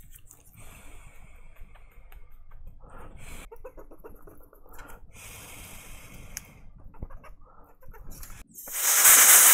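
Intermittent quiet hissing and scrapy handling noises at a microsoldering bench, then near the end a loud, even hiss of rushing air starts abruptly.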